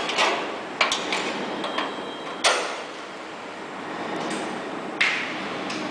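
A handful of sharp metallic knocks and clanks from sheet-metal cabinet parts being handled and fitted, each with a short ringing tail. The loudest comes about two and a half seconds in and another near the end.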